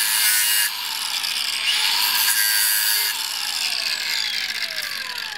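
A motor-driven machine whirring with a rasping, grinding texture. Its pitch dips and rises again about two seconds in, and it winds down in falling whines over the last couple of seconds.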